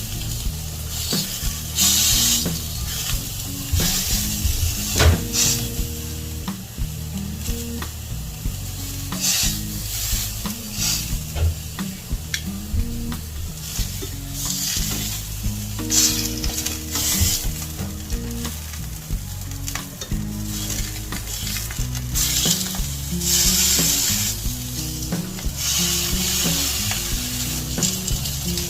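Salmon fillet frying in melted butter in a pan, sizzling steadily, with the sizzle swelling louder several times.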